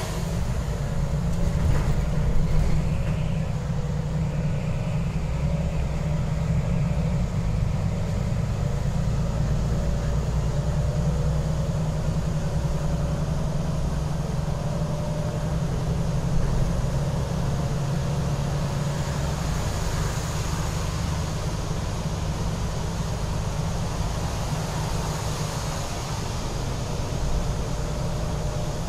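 City bus driving along a wet road, heard from inside the passenger cabin: a steady low rumble from the engine and running gear, under a hiss of tyres on the wet surface.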